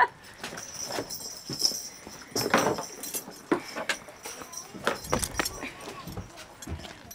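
Scattered knocks, rustles and light metal clinks of horse tack being handled in a horsebox, the loudest knocks about two and a half and five seconds in.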